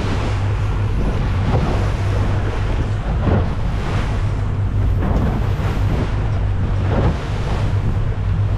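Twin outboard motors running with a steady low hum, under the rush and splash of the boat's wake and wind buffeting the microphone.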